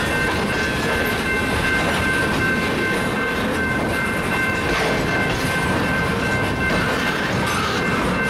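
Loaded freight cars (covered hoppers and a flatcar) rolling past on the rails, a steady rumble and rattle of wheels and cars, with a steady high-pitched squeal over it.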